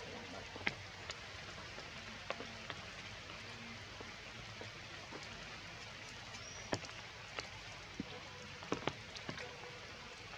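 Steady rain falling, with louder single drops ticking at irregular moments.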